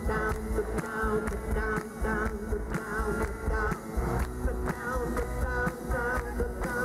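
Live band playing an instrumental passage of a rock song: acoustic guitar and drum kit keeping a steady beat under a melodic lead line.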